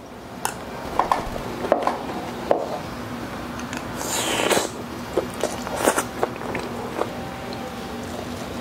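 Close-miked eating sounds: wet mouth clicks and smacks while eating goto rice porridge from a spoon, with a longer slurp about four seconds in.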